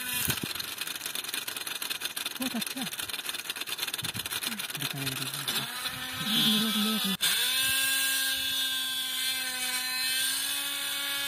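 Small electric motor of a toy borewell drilling rig spinning its drill rod into dry soil. It runs with a rapid rattling buzz through the first half, then settles into a steady whine after a brief cut about seven seconds in.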